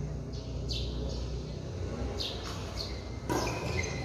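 Court shoes squeaking in short chirps on the badminton court floor during a rally, with a racket hitting the shuttlecock once, a little over three seconds in.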